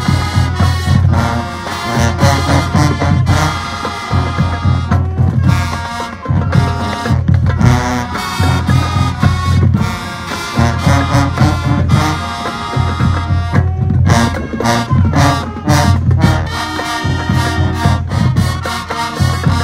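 High school marching band playing loud: brass lines over a heavy, pulsing low end, with frequent drum and cymbal hits.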